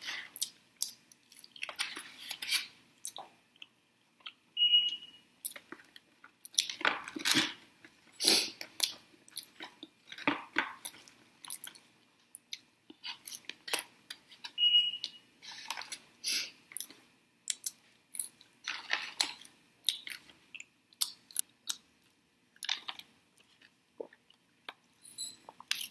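Close-up chewing of french fries dipped in sauce: irregular wet smacks and soft crunches from the mouth. Two brief high squeaks sound about 5 and 15 seconds in.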